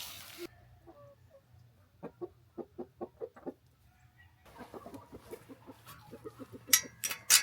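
Chickens clucking in runs of short, quick repeated notes, about five a second. A few sharp clicks near the end are the loudest sounds.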